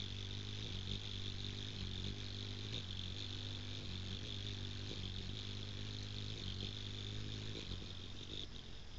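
Ruby-throated hummingbird hovering close by, its wingbeats making a steady low hum that weakens near the end as it flies off. Insects keep up a steady high-pitched drone behind it.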